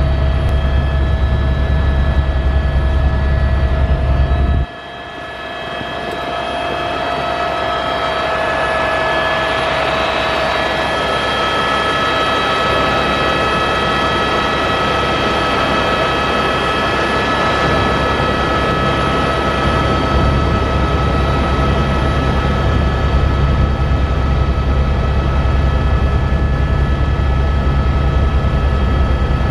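Helicopter cabin noise in flight: a steady low rotor drone with a high turbine whine on top. About five seconds in the sound drops suddenly and the low drone cuts out, then it builds back over a few seconds, and the full low drone returns about two-thirds of the way through.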